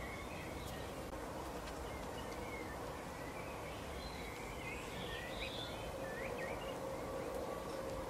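European goldfinches twittering: short chirps and quick rising-and-falling notes, busiest from about four to seven seconds in, over a steady outdoor hiss with a faint hum.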